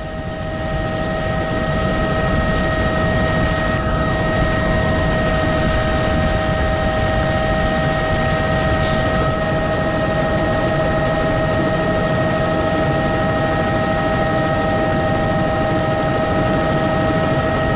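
Helicopter running steadily: engine and rotor noise with several constant high whining tones over it, swelling up in the first second.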